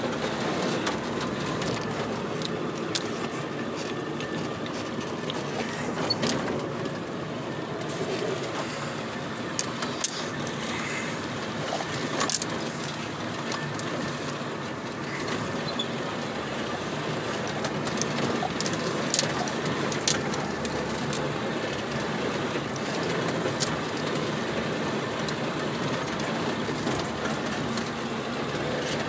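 Inside a vehicle driving on a rough dirt track: a steady rumble of tyres and suspension on the dirt, with scattered rattling clicks and knocks as the cab jolts over bumps.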